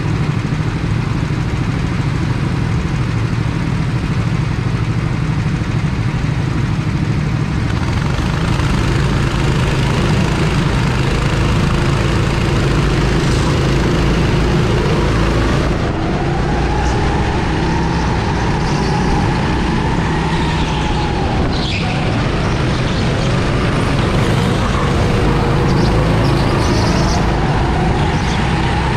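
Go-kart engine running hard, recorded close up from a camera on the kart. Its pitch rises and falls repeatedly from about halfway through, as the kart accelerates and slows through corners.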